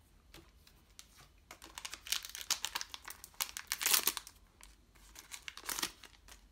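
Foil booster-pack wrapper of a trading card game crinkling and being crumpled in the hand, in bursts from about one and a half seconds in, loudest around four seconds, with a last shorter burst near the end.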